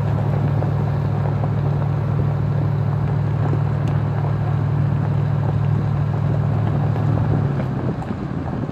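Ford Expedition driving on a gravel road: a steady low engine drone over the rumble of tyres on gravel. Near the end the drone drops and eases off a little.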